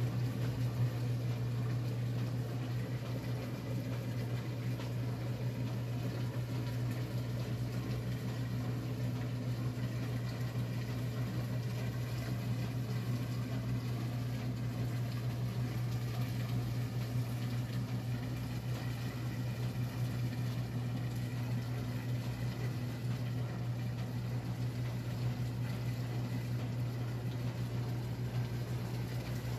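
1957 Blackstone 350 automatic washer running with a steady motor hum and water sloshing around the load of clothes in its stainless tub.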